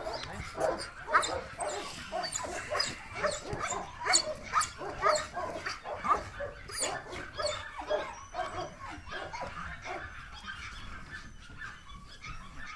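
German Shepherd dog barking over and over in agitation, two or three barks a second, as it lunges on the leash at a rag waved in bite training; the barking eases off and gets fainter near the end.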